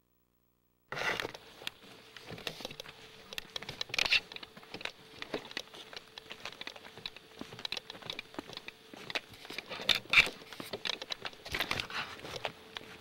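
Footsteps scuffing and crunching on gritty, rocky ground, mixed with camcorder handling noise. The sound starts about a second in as irregular clicks and crunches of varying loudness, over a faint steady hum.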